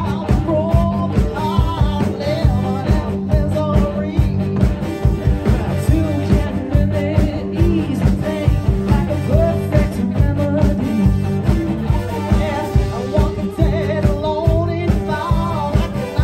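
Live rock band playing: electric guitars and a steady drum beat, with a woman singing lead into the microphone.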